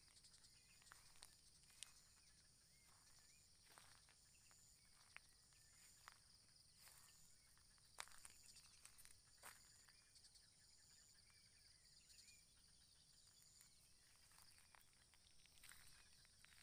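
Faint insect chorus: a steady high buzz with a pulsing note that repeats about once a second, with scattered faint clicks.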